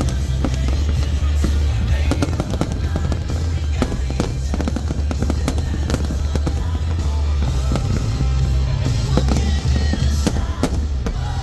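Fireworks going off in quick succession, many sharp bangs and crackles close together, with music playing throughout.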